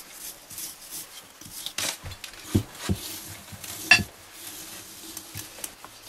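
Kitchen handling sounds from filleting a large fish with a knife over paper on a table: rustling with a few knocks and clinks, the sharpest clink just before four seconds in.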